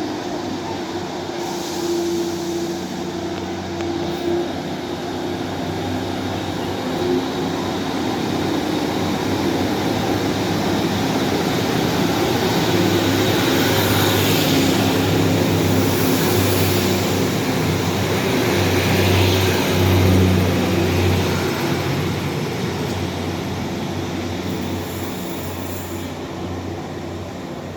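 Diesel train engines running as a train moves through the station, a steady low drone that builds to its loudest about twenty seconds in and then fades, with brief high hissing from the wheels or brakes near the middle.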